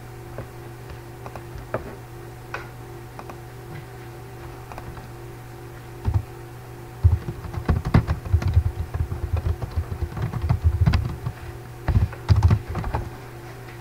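Typing on a computer keyboard: a few scattered key clicks at first, then a quick run of keystrokes from about seven seconds in until near the end, over a steady low electrical hum.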